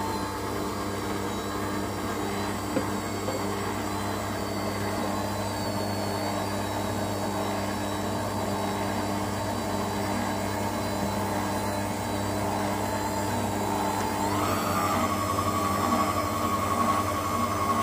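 Electric stand mixer running with its dough hook, working flour and liquid into bread dough. Its motor gives a steady hum and whine, and the whine rises a little in pitch about three-quarters of the way through, then holds.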